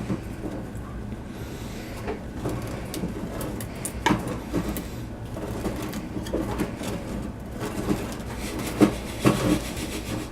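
Irregular clicks, scrapes and crunches of pet rats working at a large sheet of matzah in their cage, over a steady low hum.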